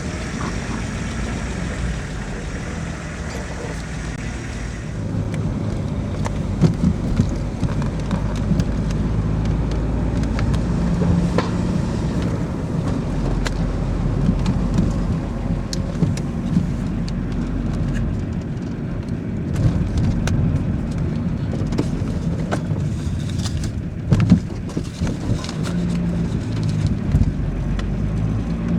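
A car being driven, with steady low engine and road noise and a few sharp knocks and rattles.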